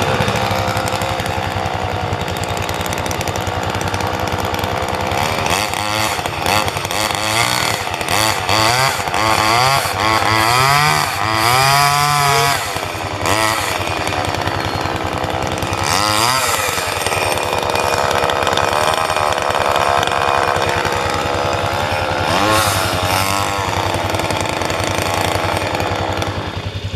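Two-stroke chainsaw running, its engine pitch rising and falling again and again as the throttle is worked, then dying near the end.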